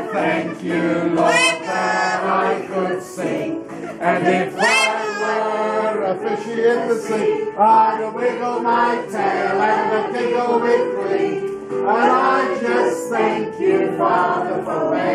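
A congregation singing a hymn together, many voices holding sung notes, with a few short, high, rising calls cutting over the singing.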